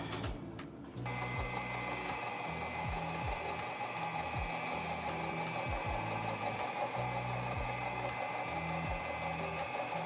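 Small milling machine running with a steady high-pitched whine that starts about a second in, over background music with a bass beat.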